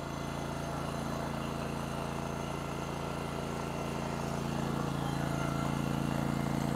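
Muscle Wood hydraulic log splitter's gas engine running steadily, a constant low drone.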